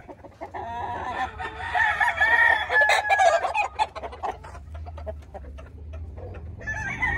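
A gamefowl rooster crows, one long wavering crow lasting about two seconds that starts about a second in. Scattered light clicks follow, and another crow begins near the end.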